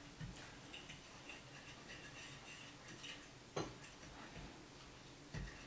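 A fork stirring a crumbly flour-and-salt play dough mix in a glass baking dish: faint scattered clicks and scrapes as the fork taps the glass, with one sharper click about three and a half seconds in.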